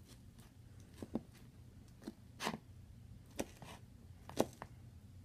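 A metal fork clicking and scraping in a plastic salad container: about half a dozen short, sharp taps spread over a few seconds, one a little longer about two and a half seconds in, over a faint steady low hum.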